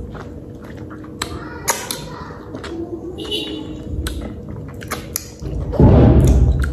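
Wet mouth sounds of eating a ripe, juicy mango: slurping, sucking and lip-smacking in scattered clicks. A loud low rumble comes near the end.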